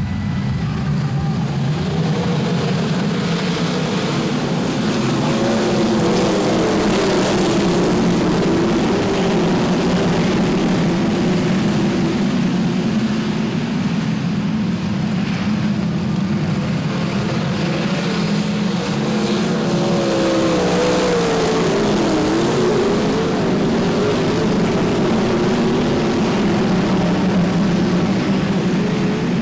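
A field of winged sprintcars with methanol-burning V8 engines running together, a continuous dense engine noise whose pitch rises and falls as the cars throttle on and off and pass by.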